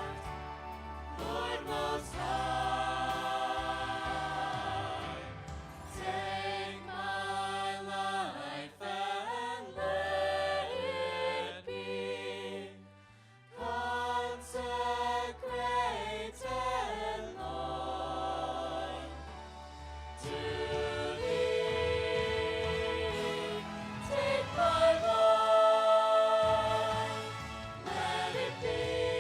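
Slow worship music with sustained choir-like voices holding chords and no clear words. It drops away briefly around the middle and swells louder about three quarters of the way through.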